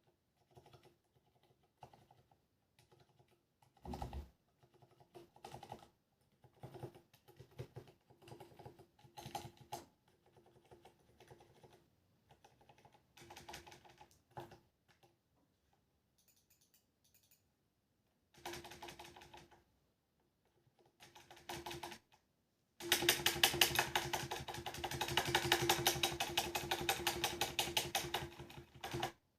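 Typing on a Ducky One 2 mechanical keyboard with Cherry MX Silent Black switches and ABS SA-profile keycaps. Short runs of keystrokes come with pauses between them. Near the end comes a long, fast, continuous stretch of typing, the loudest part.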